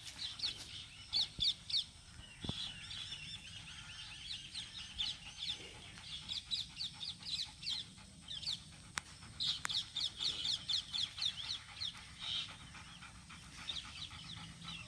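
Small birds chirping in quick runs of short, high notes, repeated in bursts again and again, with a few faint clicks among them.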